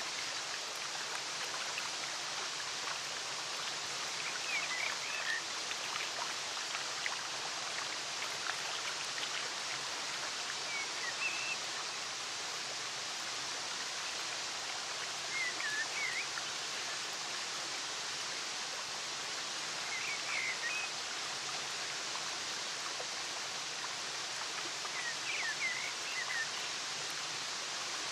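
Steady rush of water from a waterfall and cascade pouring over rock ledges. Short high chirps are heard five times, about every five seconds.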